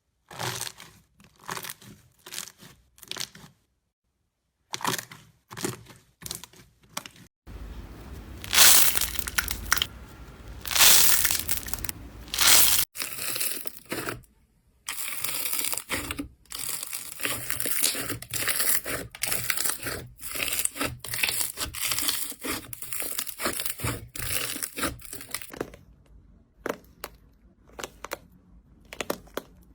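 Slime being squeezed, pressed and pulled by hand, making crinkly, crackling noises in short bursts, with abrupt edits between clips.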